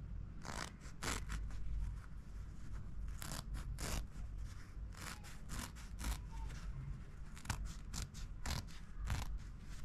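Scissors snipping through lining fabric, short sharp cuts about two a second in an uneven run, as the fabric is cut along a marked outline.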